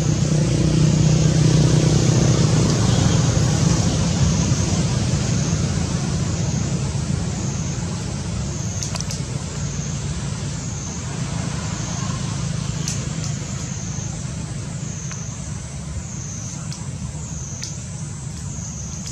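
Steady low rumble of road traffic, heaviest in the first few seconds and slowly easing off. Over it runs a thin high whine that pulses about once a second.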